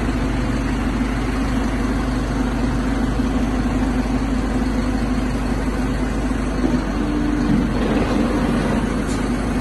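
Heavy truck engine running steadily, powering a truck-mounted crane as it hoists a load; a constant low hum without pauses.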